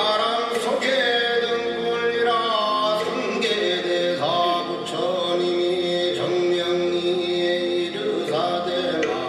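Korean traditional ritual singing: one voice holds long notes that slide between pitches, over a steady drone from the accompanying instruments, with a few light percussion knocks.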